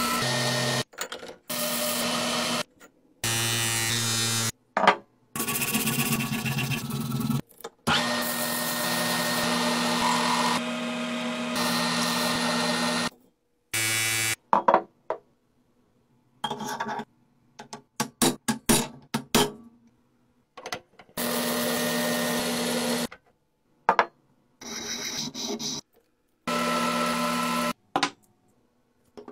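A quick run of short workshop clips, each cut off abruptly: machine tools and power tools running against metal, including a threaded steel shaft spinning against a rotating brush and a steel chisel held to a spinning wheel. In the middle, a stretch of sharp clicks and knocks between near-silent gaps.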